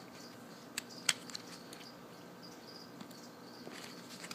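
Faint high-pitched chirps repeating in short runs, with a sharp click about a second in and a few lighter clicks.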